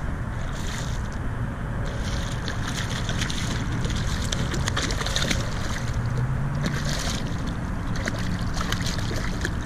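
Wind buffeting the microphone on a kayak out on open water, with water lapping and splashing against the hull in uneven patches.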